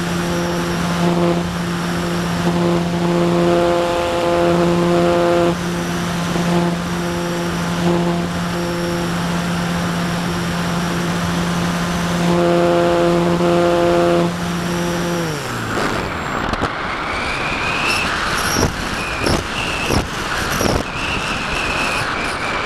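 Brushless electric motor and propeller of a Parkzone Radian RC glider running at a steady pitch, then spinning down sharply about 15 seconds in as the motor is cut. The propeller folds back and the glider goes on with a rush of wind past the airframe and a faint high whistle.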